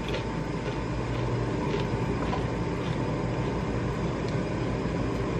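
Steady low rumbling hum, with a few faint, short crunches of a seed cracker being chewed.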